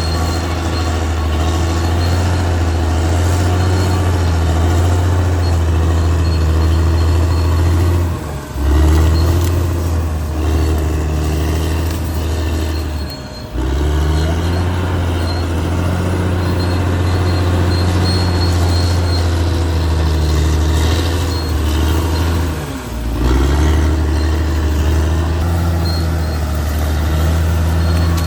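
Caterpillar D6R XL bulldozer's diesel engine running steadily and loudly. Its note dips briefly and picks up again three times, about eight, thirteen and twenty-three seconds in.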